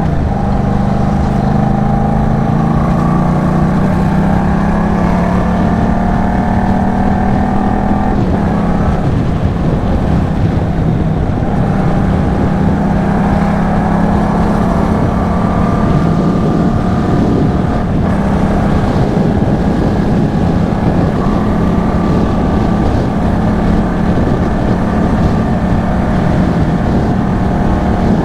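Yamaha MT-07's parallel-twin engine running through an aftermarket Arashi sport exhaust under way, with wind rumbling on the microphone. The engine note rises for the first eight seconds or so, drops away, then holds at a fairly steady pitch for the rest.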